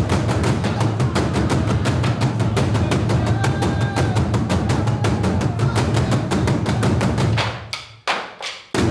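Burundian ingoma drum ensemble: many tall skin-headed drums struck with wooden sticks in a fast, steady beat. The drumming breaks off about seven and a half seconds in, followed by a couple of last hits.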